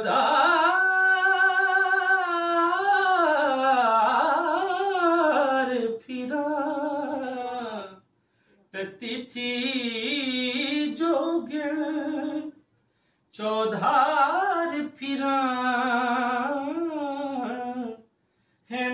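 A man singing a Sufi devotional song in long, drawn-out melismatic phrases, the pitch sliding up and down on held vowels. The phrases break off into short silences about eight, thirteen and eighteen seconds in.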